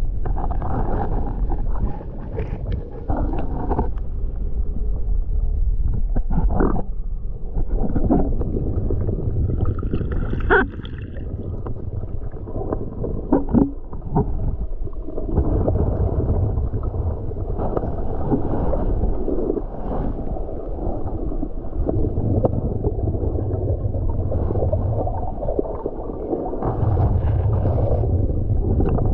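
Muffled underwater noise heard through a submerged action camera: a steady low rumble and gurgling water movement, with a few short knocks and a brief squeak about ten seconds in.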